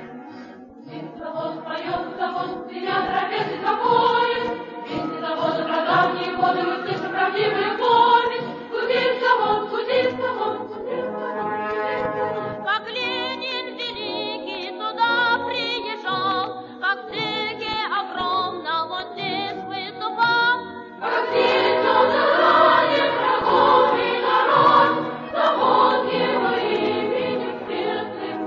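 A choir singing a Soviet song. The sound thins to fewer voices in the middle, then comes back fuller and louder about two thirds of the way through.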